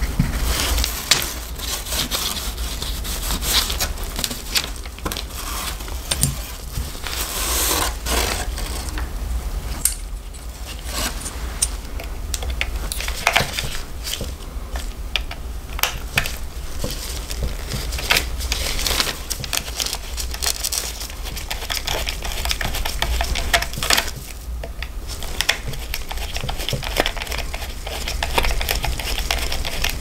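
Close handling noise: irregular rubbing, scraping and crackling with scattered small clicks and knocks as a vintage Wahl barber clipper is worked on by gloved hands over kraft paper, over a steady low hum.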